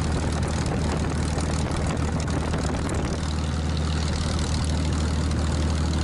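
Hawker Hurricane Mk XII's Merlin 29 V12 engine and propeller running steadily at low power on the ground, heard from inside the open cockpit.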